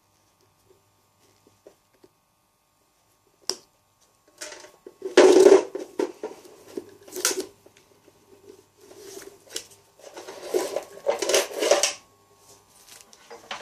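Broken-up foam insulation from a water heater being scraped up off the floor with a metal scoop and tipped into a plastic bag: a single click a few seconds in, then repeated bursts of scraping, crunching and rustling.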